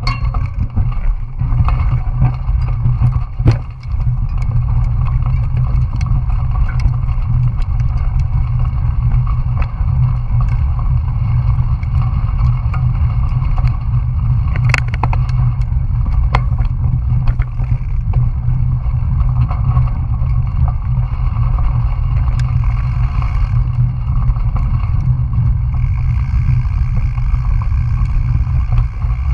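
Wind rushing over a GoPro's microphone on a moving bicycle: a steady, loud low rumble, with scattered sharp clicks and rattles from the bike rolling over a dirt road.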